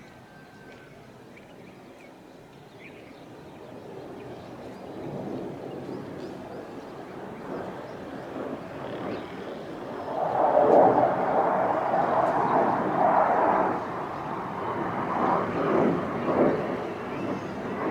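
Military fighter jet flying by: its jet engine noise builds from about four seconds in and is loudest from about ten seconds on, a rushing noise that swells and wavers in strength. A few faint bird chirps come before the jet noise.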